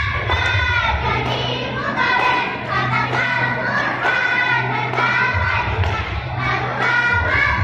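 A group of young girls singing a yel-yel cheer together in unison, with a low beat underneath.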